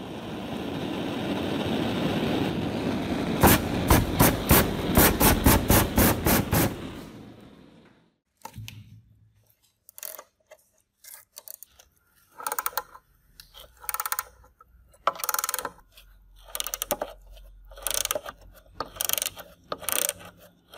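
A torch runs with a steady rushing hiss for about eight seconds, heating the rust-seized pointer nut of an antique mechanical hanging scale, with a quick run of sharp clicks partway through. Then a ratchet wrench clicks in short bursts as it is swung back and forth on the nut.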